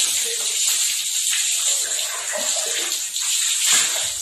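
Water running and splashing steadily while a cocker spaniel is bathed and rinsed with a plastic mug.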